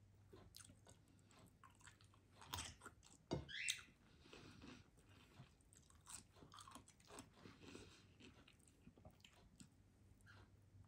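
Faint close-up sounds of a person chewing and eating with their hands: soft wet chewing and small clicks, with a couple of louder crunchy bites about two and a half and three and a half seconds in.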